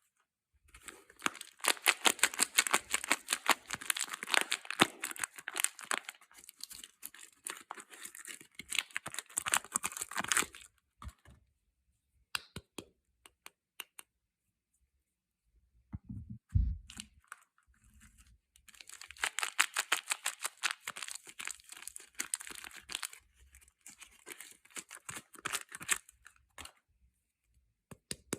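Soap packaging being torn open and crinkled by hand, in two long spells of dense crackling with scattered clicks between them. There is a short low thump about sixteen seconds in.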